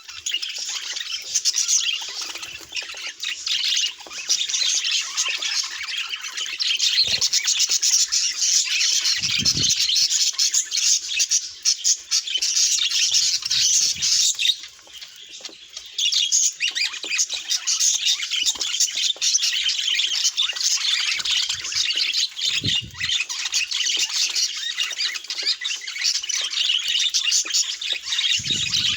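Budgerigars chattering and squawking in a dense, continuous high-pitched stream, with a brief lull about halfway through.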